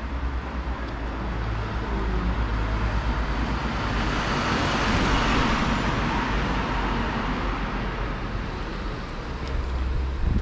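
A road vehicle passing by: its tyre and engine noise swells to a peak about halfway through, then fades, over a steady low rumble.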